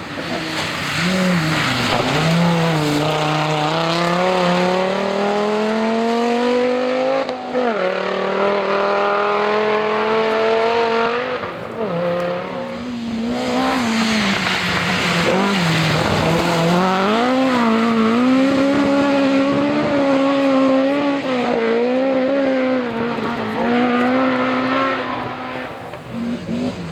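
Historic rally car engine pulling hard on a special stage, its pitch climbing steadily and dropping at gear changes about seven and twelve seconds in. After a brief lift it holds high revs with small rises and falls.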